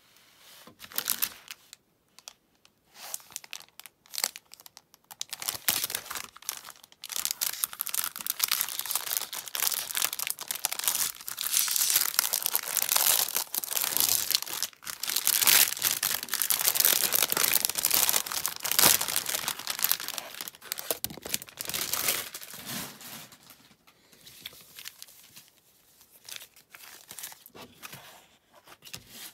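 Plastic wrapper of a trading-card multipack being torn and peeled off its cardboard backing: a long run of crinkling and tearing, loudest about halfway through. Short rustles of handled packaging come before and after it.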